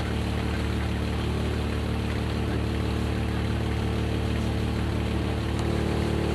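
Boat engine running at a steady, unchanging drone, with an even hiss of water and wind over it.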